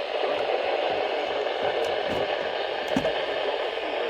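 Steady radio static hiss from a weather radio receiver, with a small click about three seconds in.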